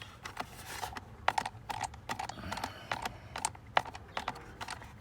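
Irregular sharp clicks and light knocks, several a second, from a hand tool tightening the screws that hold a new blower motor in place under a BMW E90's dashboard.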